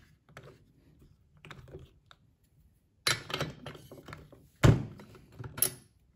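Steel bar spanner working the spark plug out of a STIHL MS 180 chainsaw's cylinder. Light handling at first, then a run of sharp metal clicks and knocks from about three seconds in, the loudest just before the five-second mark.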